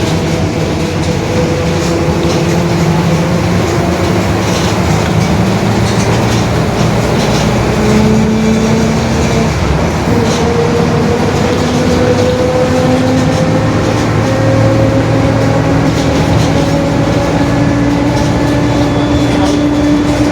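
Mercedes-Benz OF-1721 bus drivetrain heard on board while under way. A droning whine from the differential climbs slowly in pitch as the bus gathers speed, with a short break about ten seconds in. Rattling and road noise run underneath.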